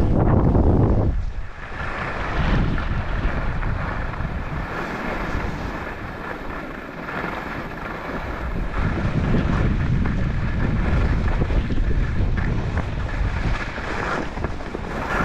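Wind rushing over the microphone of a snowboarder riding downhill, mixed with the snowboard's edges scraping over chopped-up, packed snow. The rush is loudest at first, dips briefly about a second and a half in, then swells and eases again.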